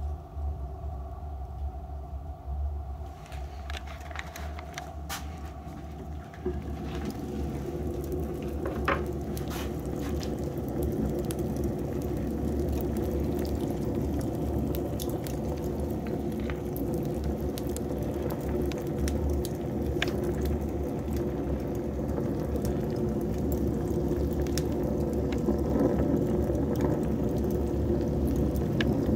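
Beech wood blocks burning in a solid-fuel boiler's firebox in a settled, steady burn: a rushing hiss of the fire that grows louder about six seconds in, with scattered crackles and pops. A steady low hum runs underneath.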